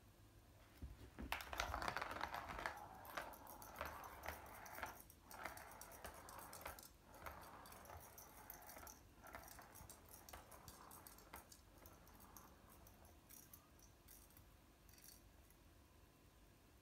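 Ball clattering and rattling around the plastic track of a Catit Senses Speed Circuit cat toy as a kitten bats it. It starts suddenly about a second in and is loudest at first, then thins into scattered clicks that fade out near the end.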